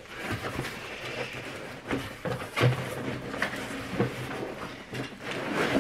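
Cardboard box and plastic packing material being handled and rummaged through by hand during unpacking: irregular rustling and crinkling with a few sharp knocks of cardboard.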